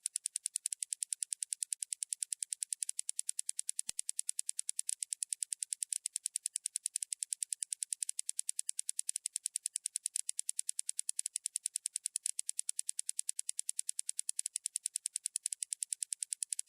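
Rapid, perfectly even ticking, several ticks a second, thin and high with no low sound underneath. It is a ticking sound effect laid over an edited stretch.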